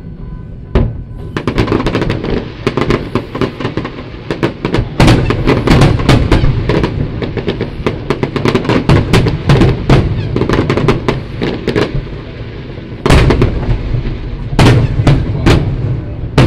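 Aerial fireworks display: a single bang just under a second in, then rapid, dense volleys of shell bursts and crackling. The bursts ease briefly about twelve seconds in, then loud bangs resume.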